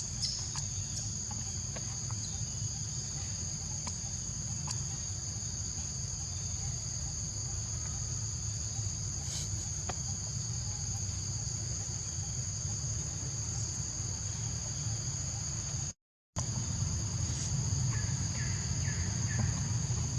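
Steady insect chorus, a continuous high-pitched trill on two tones, over a low rumble. The sound drops out completely for a moment near the end, and a few faint chirps follow.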